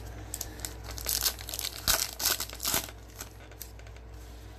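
Crinkling and rustling of plastic trading-card packaging handled by gloved hands, in a run of sharp crackles about one to three seconds in that then die down.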